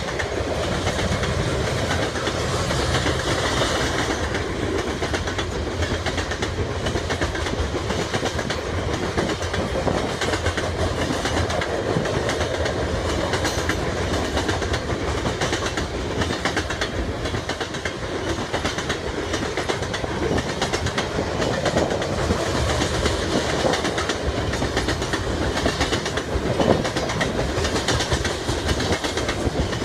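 Coal cars of a freight train rolling past, their steel wheels clicking steadily over the rails with a continuous rumble.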